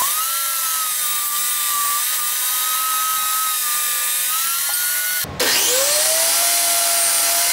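Benchtop table saw running with a steady high motor whine while ripping a walnut board. About five seconds in the sound breaks off abruptly, and the saw is heard spinning up again, its whine rising and then holding steady.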